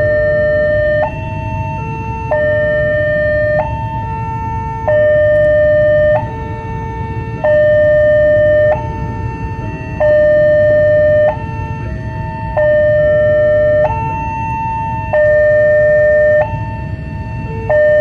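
Railway level-crossing warning alarm: an electronic two-tone signal that switches between a higher and a lower tone about every second and a quarter, sounding while the barrier is down to warn that a train is approaching. A steady low rumble lies beneath it.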